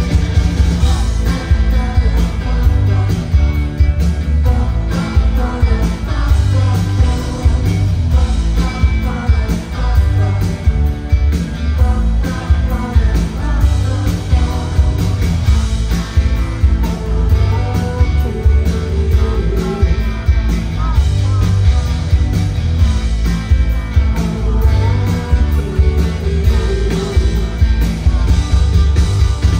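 Live pop-rock band playing with electric guitars, drums and heavy bass, and a singer's voice over the top, as heard through the festival PA.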